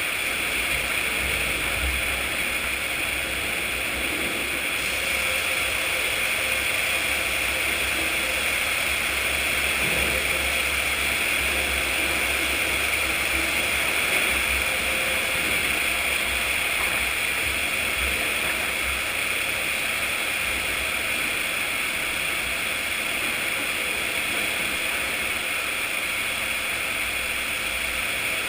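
Sawmill machinery running with a steady, even noise.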